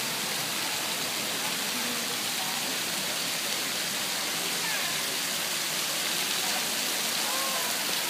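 Indoor rain fountain: a shower of water drops falling from a ring in the ceiling into a pool, making a steady, even hiss of splashing. Faint voices of people chatter underneath.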